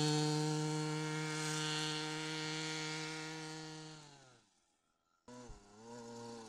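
A two-stroke chainsaw engine powering a bicycle, running at high revs with a steady whine, then dropping in pitch and fading out about four seconds in. After a short break it is heard again, quieter and at lower revs, its pitch wavering up and down.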